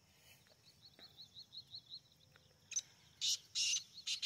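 Black francolin calling: harsh, grating notes, two together a little after three seconds in and one more near the end. Before them, a faint run of quick thin high chirps, about six a second, from a smaller bird.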